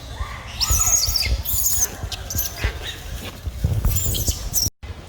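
Baby monkey crying in a series of short, high-pitched wavering squeals, over low rumbling noise. The sound cuts out abruptly near the end.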